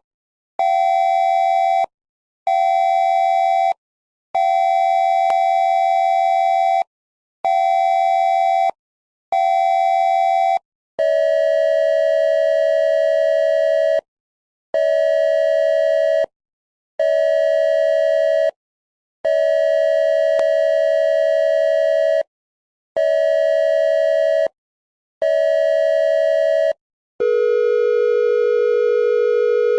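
Cell phone Amber Alert (Wireless Emergency Alert) attention tone played back slowed down: loud steady beeps in a repeating pattern of one long beep and two short ones. About eleven seconds in, the pattern drops lower in pitch and slows, and near the end it drops again into a deeper, slower tone.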